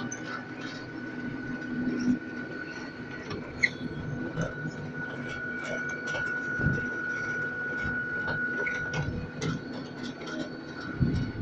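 Elevated panorama ride train rolling along its track, heard from on board: a steady high whine over a rolling rumble, with scattered clicks and a few low knocks from the running gear.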